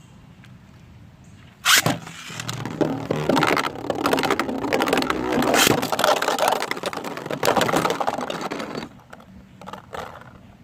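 A Beyblade launcher rips sharply about two seconds in, then two 3D-printed Beyblade spinning tops whir and knock together in the stadium for about seven seconds before falling quiet.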